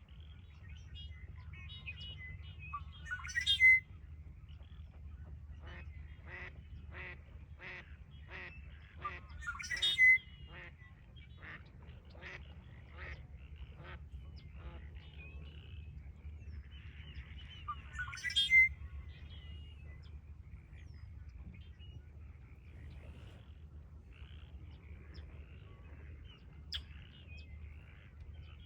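Red-winged blackbird singing its buzzy trilled song three times, about three, ten and eighteen seconds in. These are the loudest sounds. Between the songs comes a long run of short, evenly spaced calls from another bird, about two a second.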